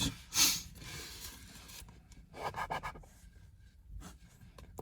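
A coin scraping the latex off a scratch-off lottery ticket, in bursts of quick short strokes with pauses between.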